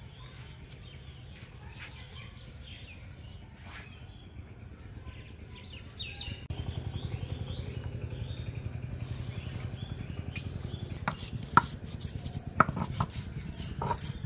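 Small birds chirping, with a low steady rumble that grows louder about six seconds in and a few sharp knocks near the end.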